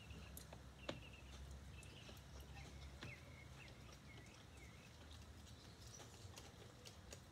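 Faint eating sounds over a low steady room hum: quiet mouth noises from chewing noodles and a few light clicks of chopsticks and a fork against plastic bowls.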